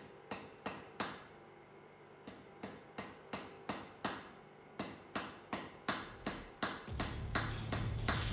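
Hand hammer striking a glowing steel rod on an anvil, forging a nail: a few quick blows, a short pause, then steady blows about three a second, each with a bright ring from the anvil. Music comes in under the blows near the end.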